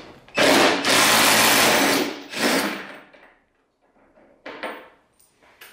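Cordless impact driver running in a loud burst of about a second and a half, then a shorter second burst, backing screws out of a washing machine's cabinet. A single light click follows a couple of seconds later.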